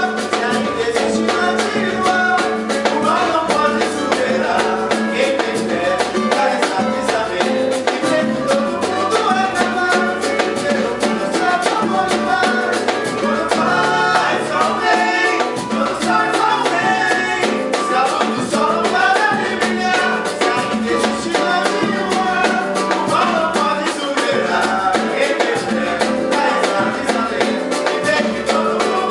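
Latin-style band music with a steady beat and a shifting melodic lead.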